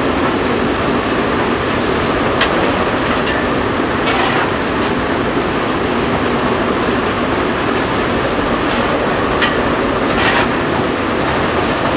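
Steam locomotive 464.202 running, heard from inside its cab: a steady loud rumble of the engine and wheels on the track, with two brief hisses and a few short knocks.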